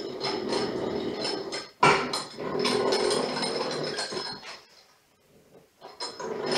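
Hand tap cutting a thread in metal, driven by a tapping stand's handwheel: a scraping, squeaky grind with a sharp click a little under two seconds in and a short pause about two-thirds of the way through.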